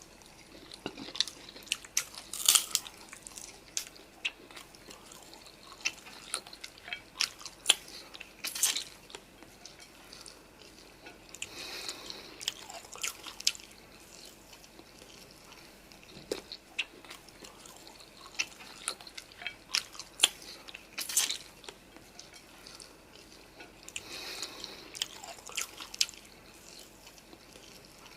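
Close-miked mouth sounds of eating noodles and chicken: chewing and biting with irregular sharp clicks and wet smacks.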